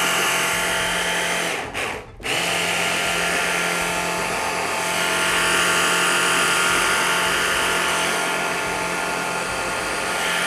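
Electric hand blender on a chopper-bowl attachment running, puréeing chickpeas with tahini and water into hummus: a loud, steady motor whir with a low hum. It cuts out briefly about two seconds in, then runs on steadily.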